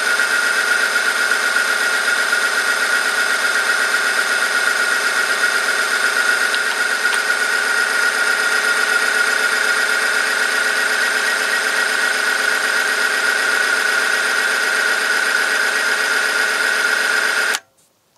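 Oil-film friction testing machine running under load: its electric motor drives a rotating steel part against a steel test sample in an oil cup, giving a steady, loud, high-pitched metal-on-metal squeal with one strong tone. It cuts off suddenly near the end as the machine stops.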